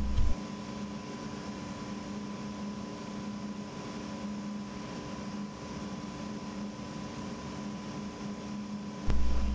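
Steady machinery hum with a low drone, a thin steady higher tone and an even hiss.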